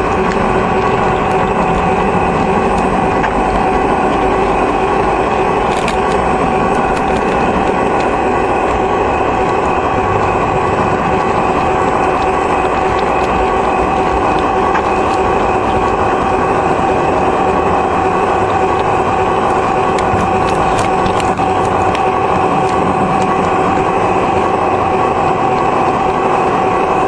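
Model train running on O27 track, heard up close from on board: a steady whine of the electric motor and gears over a rumbling hum, with a few faint clicks from the track.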